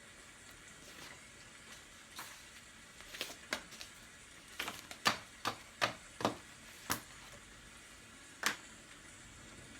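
About a dozen sharp, light clicks at irregular intervals, bunched in the middle, over a faint steady hiss of rain.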